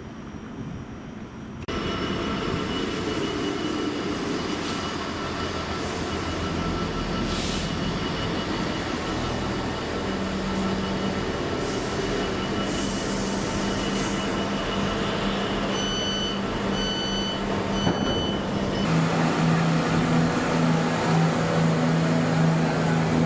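Class 66 diesel freight locomotives passing: the EMD two-stroke V12 engine drones steadily under a heavy rumble of wheels on rail, with three short high beeps a little past halfway. Near the end a second Class 66 is heard, its engine note lower and steadier.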